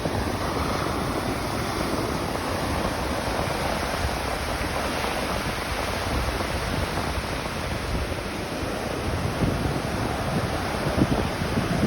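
Atlantic Ocean surf washing in steadily, with a heavier low rumble of breaking waves near the end.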